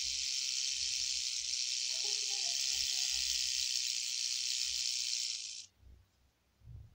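Rattlesnake buzzing its tail rattle in a steady, high-pitched buzz that cuts off suddenly a little over five seconds in.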